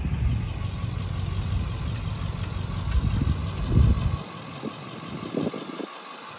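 An engine idling with a low rumble that falls away to a quieter background about four seconds in.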